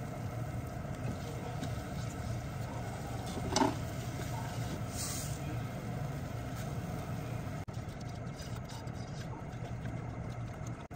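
Steady low hum of a kitchen appliance under the soft scraping of a silicone spatula stirring a roux in a saucepan. A single knock comes about three and a half seconds in, followed by a brief hiss.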